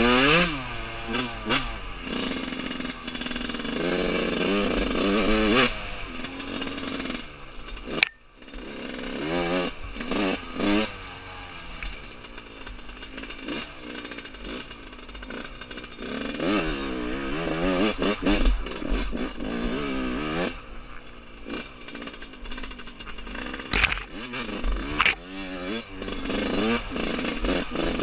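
Yamaha YZ125's single-cylinder two-stroke engine revving up and down again and again as the bike is ridden over rough trail, with a sharp knock about eight seconds in.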